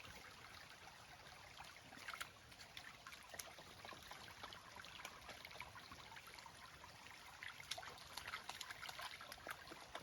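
Faint trickling water of a small stream, with many small drips and ticks over a soft steady rush.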